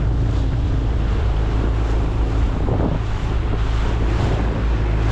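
Wind buffeting the microphone, a steady low rumble with no distinct events.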